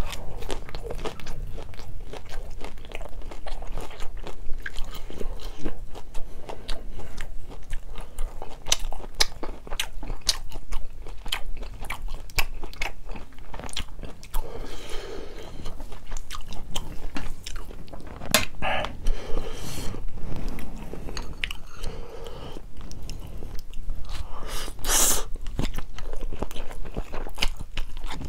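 Close-miked chewing of spicy stir-fried instant noodles (Buldak-bokkeum-myeon): continuous wet smacking and mouth clicks as mouthfuls are chewed, with a few louder slurps of noodles.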